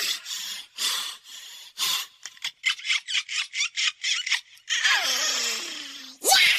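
Short scratchy, hissing noise bursts, spaced irregularly and then quickening to about four a second. Next comes a longer swishing sweep with a falling tone, and a sharp whoosh near the end. These are sound effects closing the sped-up hip-hop track.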